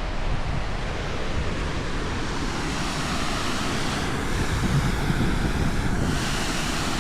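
Waterfall rushing, a steady roar of falling water, with wind buffeting the microphone.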